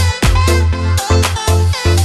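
Electronic dance music with a steady four-on-the-floor beat, heavy bass thumps and synth notes.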